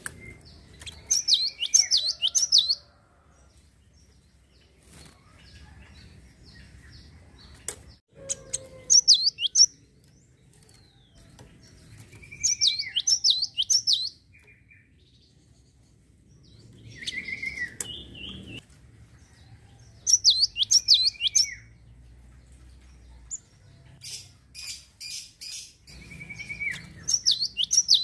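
Java sparrow (gelatik) singing in repeated short bouts every few seconds. Each bout is a slurred lower note followed by a quick run of high, falling chirps.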